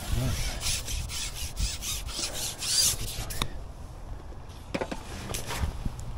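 A fishing pole being handled and slid back over the tackle: a run of rough rubbing scrapes for about three seconds, then a few sharp clicks.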